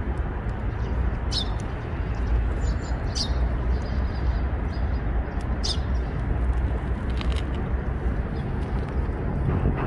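Steady low outdoor background rumble, with a few short, high bird chirps scattered through it, about four in all.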